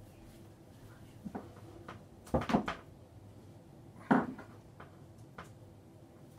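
A few knocks and clunks of things being handled and set down. The loudest are two close together about two and a half seconds in, then one more about four seconds in.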